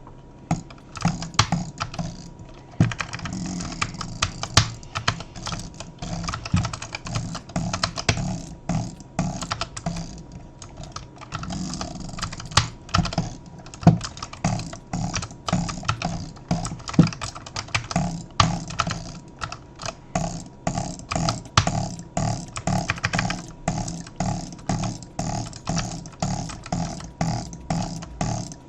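Clutch mechanism clicking repeatedly, a few clicks a second in an even rhythm, over a steady low hum.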